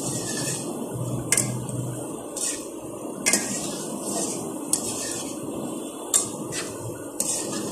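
Shakarpara frying in hot ghee in an aluminium kadai, a steady sizzle, while a metal wire skimmer clinks and scrapes against the pan about five times as the fritters are turned over.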